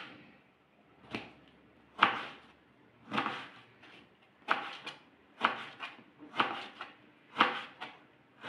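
Kitchen knife chopping peeled eggplant into small cubes on a plastic cutting board: about a dozen short chops, each blade cutting through the soft flesh and tapping the board, at a steady pace of one or two a second.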